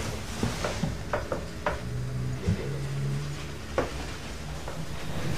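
Irregular light clicks and clatters, about eight across a few seconds, over a steady low hum.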